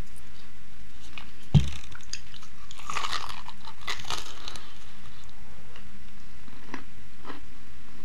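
A sharp thump about one and a half seconds in, then the crisp fried pastry crust of a chicken empanada crunching as it is bitten into and chewed close to the microphone, with a couple of short clicks near the end.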